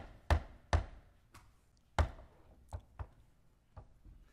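A series of sharp knocks at uneven intervals, about eight in all, the four loudest in the first two seconds and fainter ones after.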